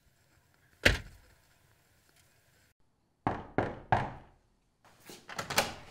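SUV door slammed shut with one loud thud about a second in. It is followed by a few quieter thumps from about three seconds in and a cluster more near the end: footsteps on pavement.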